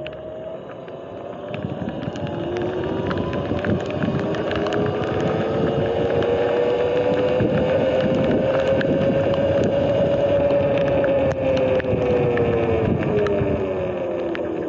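Electric dirt bike's motor whining under acceleration. The pitch starts about two seconds in, rises slowly for several seconds, then falls near the end as the bike slows, over wind noise on the microphone.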